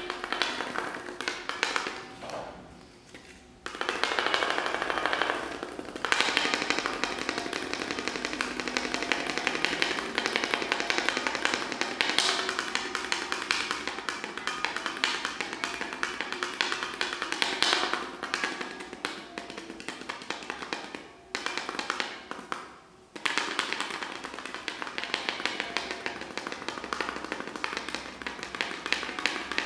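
Dense, rapid tapping and clicking, broken by short drops about three seconds in and again around twenty-one and twenty-three seconds in.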